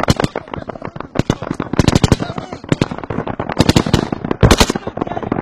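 Heavy gunfire: dense bursts of automatic fire, the thickest about two seconds in and twice more in the second half, with scattered single shots between them.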